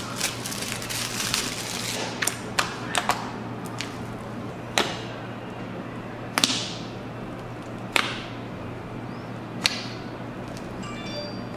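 Fingers poking and pressing slime: glitter slime and slime packed with foam beads give sharp wet clicks and pops, a quick cluster at first and then roughly one every second and a half.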